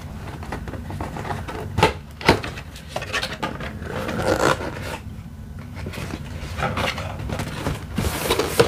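Cardboard box being opened: a knife slitting the packing tape, then cardboard flaps scraping and rubbing as they are pulled apart, with two sharp snaps about two seconds in.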